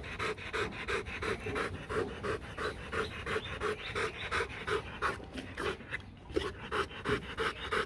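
Rottweiler panting hard and steadily, about four breaths a second, with a brief pause about six seconds in.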